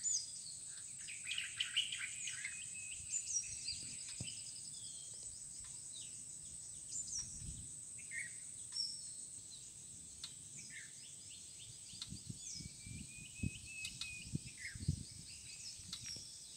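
Birds chirping and calling in scrubland, with many short chirps and falling whistles over a steady high-pitched insect drone. A few soft low thumps come and go.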